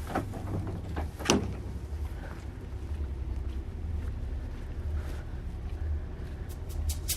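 Steady low rumble inside a vehicle, with two short knocks a little over a second in and a few faint ticks near the end.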